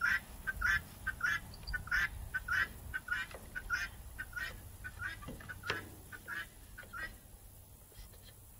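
Poultry calling in a quick run of short, repeated squawks, about two to three a second, that stops about seven seconds in.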